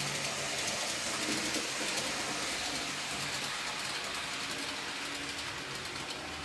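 N-scale model train running on the layout track: a steady rattle of small wheels on rail with fine rapid clicking, over a faint hum from its small electric motor that comes and goes.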